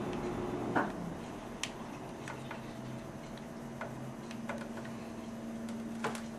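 Irregular light clicks and taps of small tools being handled on a circuit board during soldering work, over a faint steady hum.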